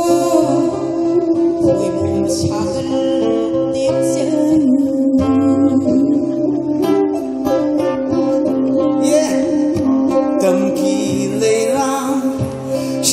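A woman singing with acoustic guitar accompaniment in a live performance.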